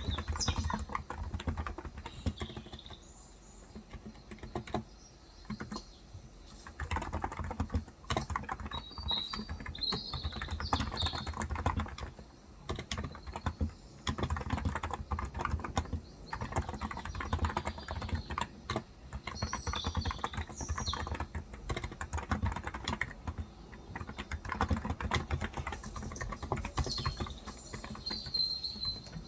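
Typing on a Cox Endeavor electro-capacitive (topre-style) 35 g tenkeyless keyboard: quick runs of keystrokes in bursts, broken by short pauses a few seconds in and again near the middle.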